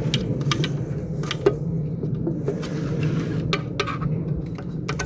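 Scattered sharp clicks and light clatter of small hard parts being handled, over a steady low hum.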